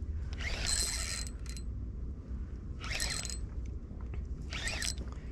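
Fishing reel whirring in three short bursts while a hooked fish is being fought, over a steady low rumble.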